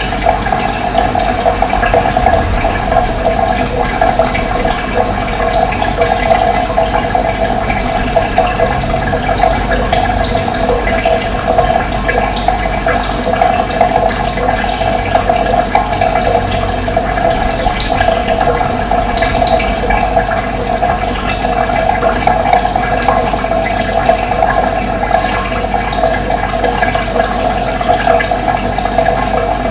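Running water rushing steadily and evenly, with no breaks or changes.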